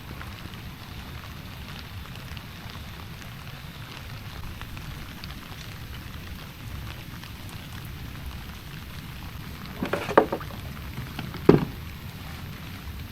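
Steady heavy rain falling. Near the end, two sharp knocks about a second and a half apart stand out above it.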